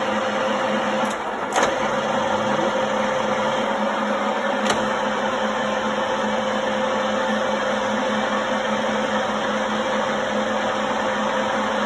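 Correa FU 2A milling machine running with a steady mechanical hum and whine. There are two sharp clicks, one about one and a half seconds in and one about four and a half seconds in.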